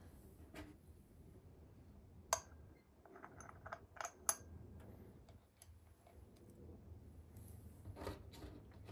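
Light metal clicks and clinks as chainsaw clutch parts and hand tools are handled during reassembly. There is one sharp click a little over two seconds in, a quick run of clicks between about three and four and a half seconds, and a few more near the end.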